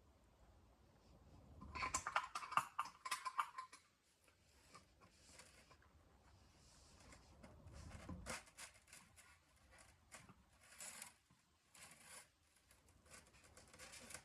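Faint metallic clicking and clinking of a wrench working the wheel bolt on an air compressor, busiest about two to four seconds in, then scattered clinks.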